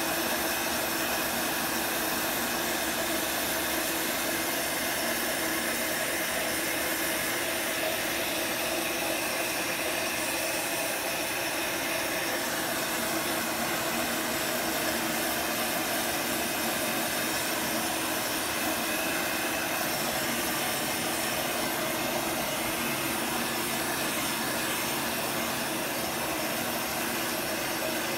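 Industrial heat gun blowing steadily, an even rushing hiss of fan and hot air with a faint steady hum in it, as it melts a layer of beeswax encaustic.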